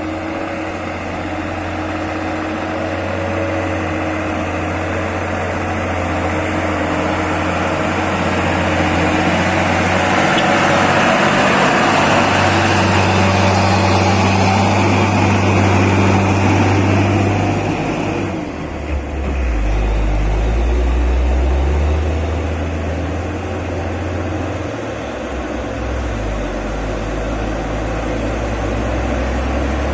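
Heavily loaded diesel trucks driving past on a gravel road: a steady low engine hum, with tyre and engine noise swelling as one truck passes close in the middle. A brief dip follows, then a lower engine note from the next truck.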